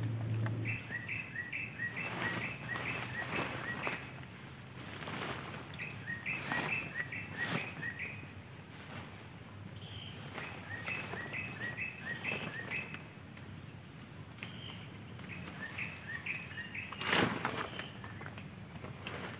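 A bird singing in about four bouts of quick repeated notes, over a steady high-pitched insect drone. Scattered rustles and light knocks come from a tent's fabric and poles being handled and from steps on dry leaf litter, with one louder rustle near the end.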